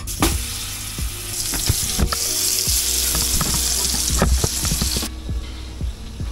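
Burger patties sizzling as they fry in butter in a hot frying pan, with a few light knocks of utensil and pan. The sizzle cuts off sharply about five seconds in.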